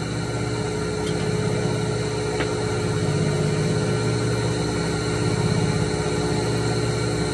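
Two-blade wood copy lathe running unloaded, a steady machine hum with no cutting. A couple of light clicks come about one and two and a half seconds in.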